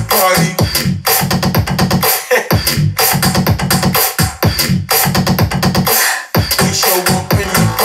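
Electronic dance track with a drum-machine beat, synths and heavy bass, played at full volume through a portable Bluetooth party speaker as a sound-quality demo.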